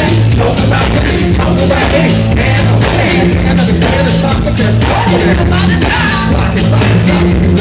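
Live band playing on stage with drums, electric guitar, a repeating bass line and singing over a steady beat.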